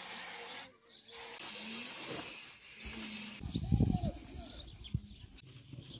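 Aerosol spray-paint can hissing in two bursts, a short one and then a longer one of about two seconds. A brief low rumble follows about halfway through.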